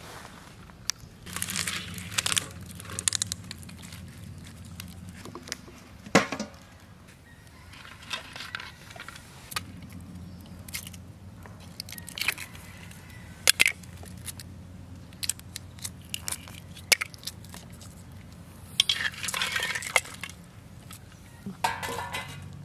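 Hard-boiled eggs handled out of a clay pot of water and set down on a steel plate: scattered clinks, taps and knocks, with a couple of stretches of rustling and crunching.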